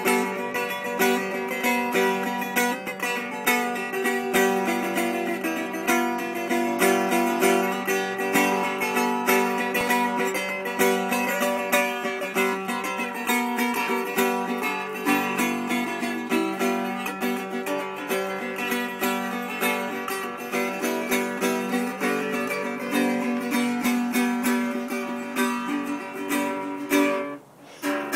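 Washburn Dobro-style resonator guitar being picked, a steady run of plucked notes and chords, with a brief break near the end.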